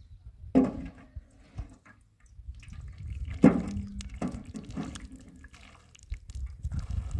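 Liquid poured from a bucket and spread with a squeegee over plastic sheeting on a roof, splashing and scraping. There are two sharp knocks, one just after the start and a louder one about halfway with a short ring.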